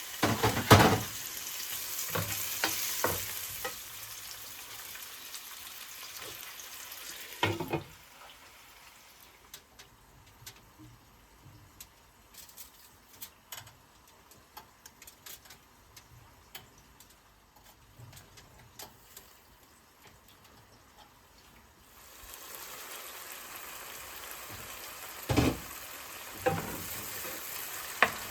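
Food frying and sizzling in a pan, stirred with a utensil, with sharp knocks of the utensil against the pan. The sizzle drops away about eight seconds in, leaving a quieter spell of light clicks. It comes back near the end with more knocks.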